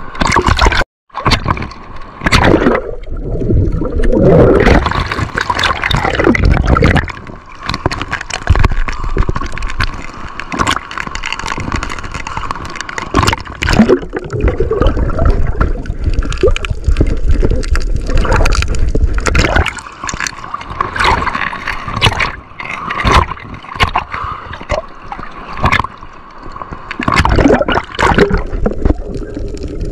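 Sea water gurgling, sloshing and bubbling around a camera held at and under the surface, with many sudden splashes and knocks throughout.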